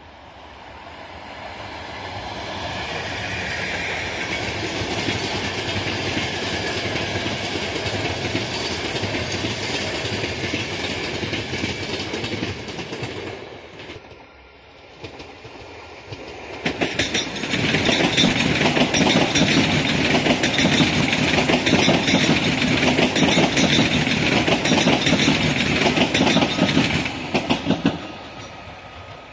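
An express passenger train hauled by an EP09 electric locomotive passes, building up over the first few seconds and fading out about 13 seconds in. After a short lull, an ED250 Pendolino high-speed train passes close by, louder, with a rapid clatter of wheels over the rail joints, starting and stopping abruptly near the end.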